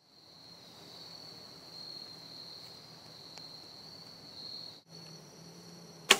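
A steady, high-pitched insect chorus. Near the end, one sharp, loud snap: a Mathews Monster compound bow being shot.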